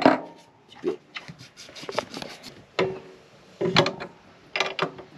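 Hand tools and metal cable lugs being handled while heavy battery cables are fitted onto an inverter's battery terminal studs. It gives scattered, irregular metallic clicks and clatters, about one a second, with a few quick ones close together near the end.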